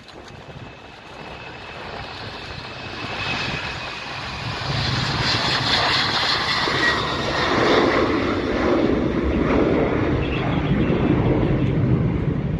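Airliner engines growing steadily louder over the first several seconds, then staying loud, with a faint falling whine early on.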